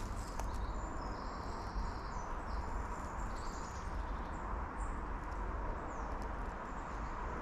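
Outdoor ambience: a steady low rumble under high, thin calls that each hold one pitch, several short ones and a longer one about two to three seconds in.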